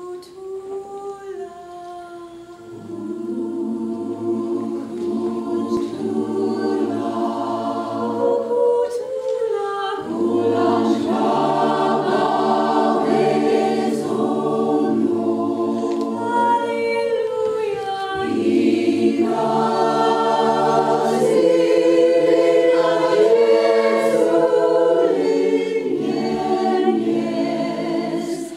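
Mixed-voice choir singing in harmony. It starts softly, grows fuller about three seconds in, and swells louder again around ten seconds.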